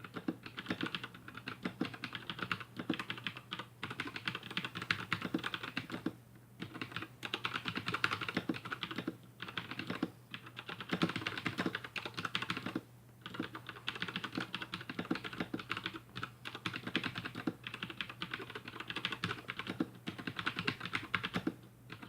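Fast continuous typing on a Razer BlackWidow Chroma V2 mechanical keyboard with Razer Yellow linear switches: a dense run of key clicks and bottom-outs, broken by a few brief pauses.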